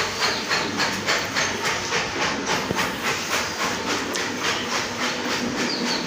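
A cow being milked by hand: jets of milk squirting from the teats into a pail in a steady rhythm, about three to four squirts a second.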